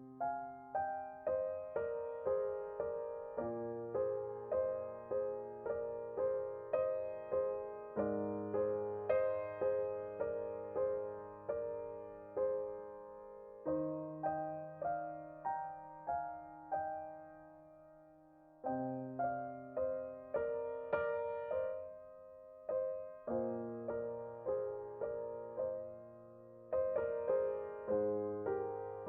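Background music: a gentle solo piano piece with a steady, even pulse of notes over slow-changing bass notes.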